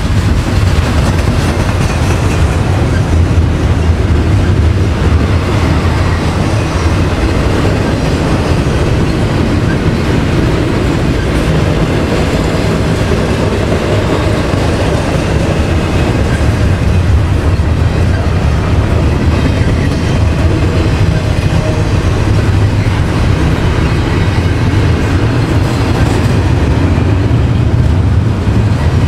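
Double-stack intermodal well cars rolling past at speed: a loud, steady rumble of steel wheels on the rails.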